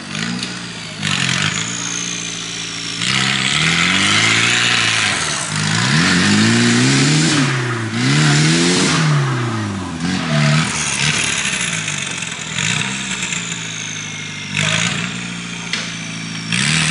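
Off-road 4x4's engine revving up and down again and again under load as it climbs a steep muddy trail, with bursts of rough hissing noise over it.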